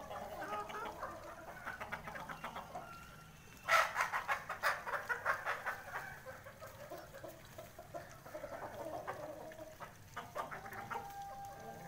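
A flock of aseel and desi chickens clucking, with a sudden loud outburst of rapid calls about four seconds in and a longer held call near the end.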